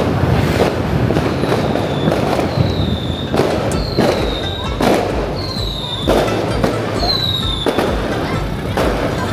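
Fireworks going off in a rapid series of sharp bangs, about one a second, with several short whistles that fall slightly in pitch between them.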